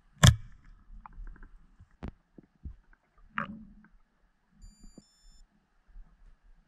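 Underwater knocks and clicks of diving gear being handled, muffled by the water: one sharp knock about a quarter second in, a few fainter clicks, and a duller thump about three and a half seconds in.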